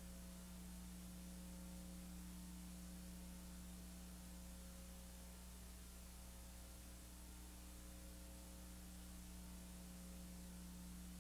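Near silence: a steady low electrical hum with faint hiss, unchanging throughout.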